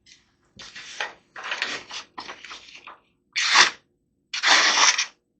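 A freshly sharpened knife blade drawn through paper in about five hissing slicing strokes, testing the edge for a catch. The slices now run with much less of a catch.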